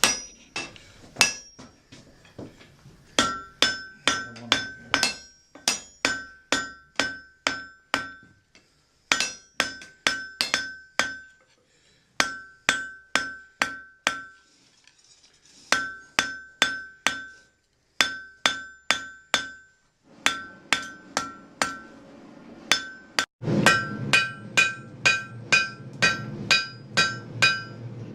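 Blacksmith's hand hammer forging a hot iron nail on an anvil: runs of sharp blows, about two to three a second, broken by short pauses, each blow leaving a clear metallic ring. Near the end a steady low rushing sound starts up under the hammering.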